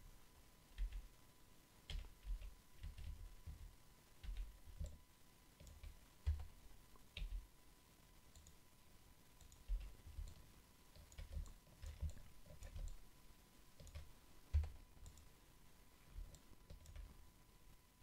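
Faint, irregular clicks of a computer mouse and keyboard, each with a low thud, as at a desk while working on a computer.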